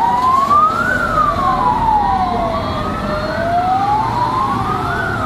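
Fire truck sirens wailing: two tones sweep slowly up and down, out of step with each other, so one rises while the other falls, over the low running of the heavy truck's engine.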